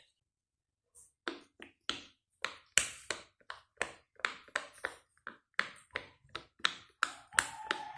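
Silicone Pop It fidget toy bubbles pressed one after another: a quick run of sharp pops, about three a second, starting about a second in.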